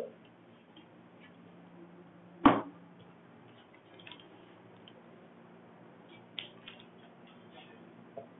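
A single sharp knock about two and a half seconds in, and a few faint clicks later, over a faint steady hum.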